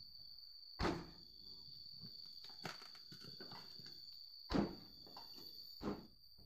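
A car's side door being shut: three heavy thunks, one about a second in and two close together near the end, with lighter knocks and rattles between. The door's hinge pins are badly worn, which makes it hard to close.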